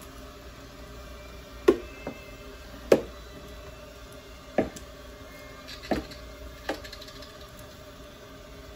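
Faint steady hiss of a hair steamer's mist, broken by about six sharp knocks of hard objects being handled at the shampoo bowl, the loudest about two and three seconds in.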